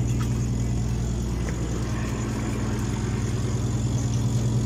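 Steady low mechanical drone of a squid-jigging ship's engines and deck machinery running, with a constant hiss over it.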